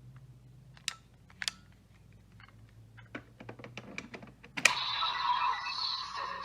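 Plastic clicks from a Kamen Rider Vision Driver toy belt being handled, then a sharp click about 4.7 seconds in, after which the toy starts playing its electronic sound effects.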